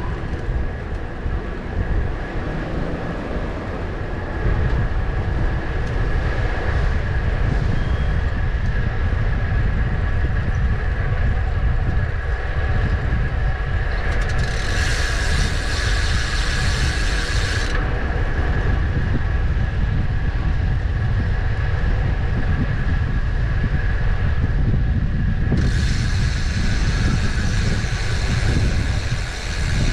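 Riding a bicycle, with a steady low rumble of wind on the microphone. Twice the rear freewheel buzzes with a fine ratcheting tick while the rider coasts: about halfway through for a few seconds, and again near the end.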